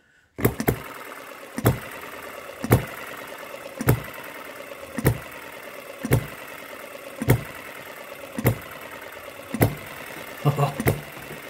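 MUSA HM-01 7cc four-stroke hit-and-miss model engine starting up about half a second in after its flywheels are spun by hand, then running with a sharp firing knock about once a second and the whir of the coasting flywheels between the shots.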